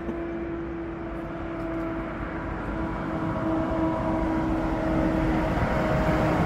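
An engine droning with a steady pitched hum over a rush of noise, growing slowly louder.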